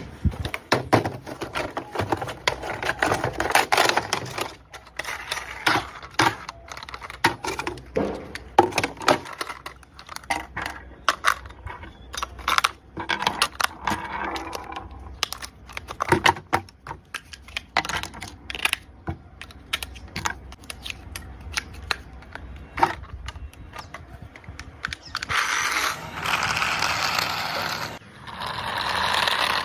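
Toy packaging being handled and opened: cardboard and plastic rustling and crinkling, with many small clicks and taps. Near the end there is a louder, steadier stretch of rustling and scraping.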